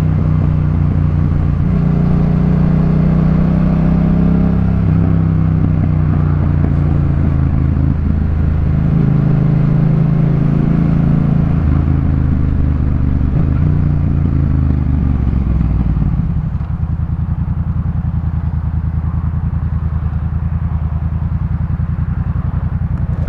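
Yamaha MT-07's 689 cc parallel-twin engine through a Jeskap K4 full aftermarket exhaust. The engine is ridden under changing throttle, its pitch rising and falling, then drops to a steady low idle about two-thirds of the way through.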